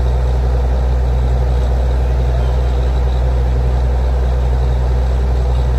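Truck-mounted borewell drilling rig's diesel engine running steadily under power, a loud, even low drone.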